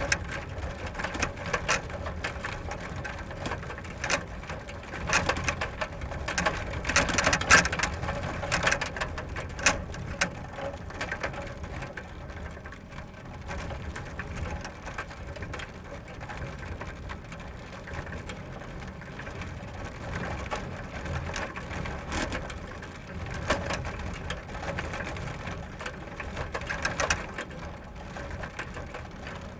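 Bicycle being ridden: the chain and drivetrain clicking and rattling over a steady low rumble of the tyres rolling, with busier clattering from about five to ten seconds in and again near the end.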